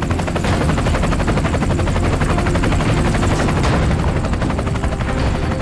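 Helicopter rotor and engine running steadily, the blades giving a fast, even chop over a low rumble.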